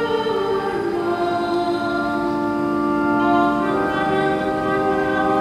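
Church choir singing slowly in long held notes, the chord shifting twice.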